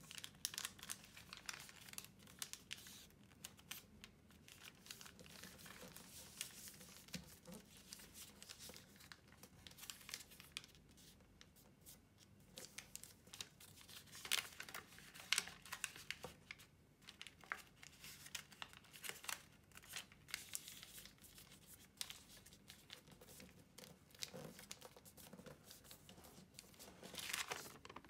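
Faint rustling and crinkling of a large sheet of origami paper being creased and folded by hand, with many short crisp crackles as folds are pressed. A longer rustle comes near the end as the sheet is lifted and opened out.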